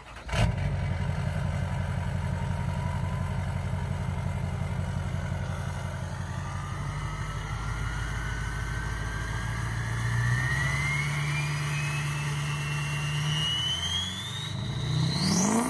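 LBZ Duramax 6.6-litre turbo-diesel V8, tuned and deleted with a full 5-inch exhaust, idling steadily close to the tailpipe. Over the second half a high whistle climbs steadily in pitch, ending in a quick sweeping whoosh.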